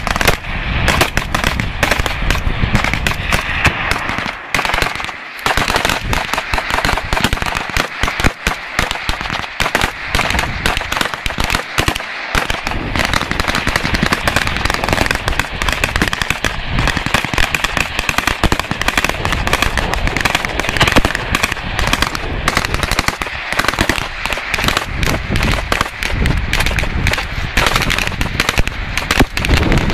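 Several Kalashnikov-pattern assault rifles and other small arms firing at once: a dense, continuous crackle of overlapping single shots and bursts, thinning briefly twice.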